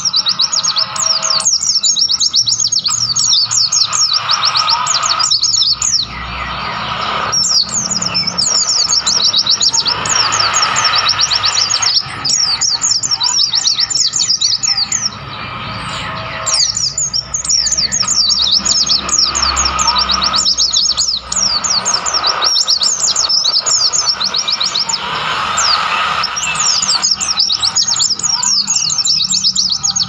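White-eyes (pleci) singing: bursts of rapid, high twittering chirps lasting several seconds each, with short pauses between, over a steady rushing background.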